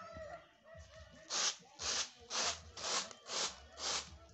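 Dry beans swishing across a woven winnowing tray as it is shaken back and forth, in even strokes about two a second, starting about a second in. The beans are being winnowed clean before they are sorted.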